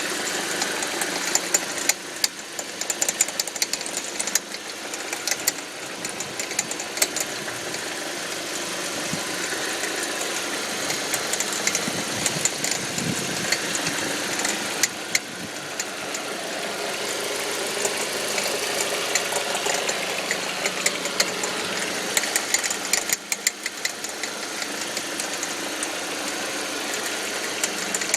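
2005 Audi 1.8T turbocharged four-cylinder engine running, with an irregular popcorn-like rattle of sharp clicks over the steady engine sound. The rattle comes from around the alternator and, according to the owner, occurs only under load in gear. Its cause is unknown; the owner suspects the water pump or the alternator.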